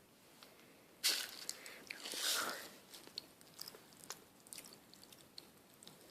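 Mouth chewing and smacking on Pop Rocks candy, with a sharp smack about a second in, a longer wet chew around two seconds, and scattered faint crackles after.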